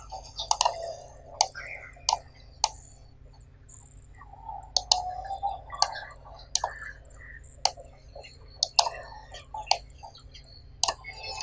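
Computer mouse clicking: about a dozen short, sharp clicks at uneven intervals, over a faint steady low hum.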